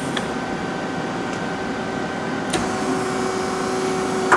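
Femco HL-25 CNC lathe's 12-station turret indexing: a click, a steady whine for about a second and a half as it turns, then a sharp clunk near the end as it locks, over the machine's steady hum with a high tone.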